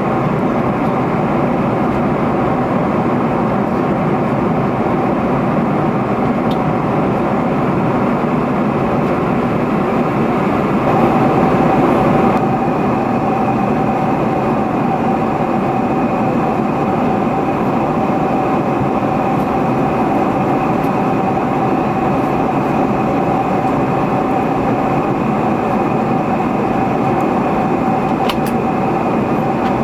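Steady cabin noise of a Boeing 747-400 in flight: a loud, even rush of engine and airflow noise with a steady hum through it. A little over ten seconds in, the noise swells briefly, and after that a thin high whine stands out.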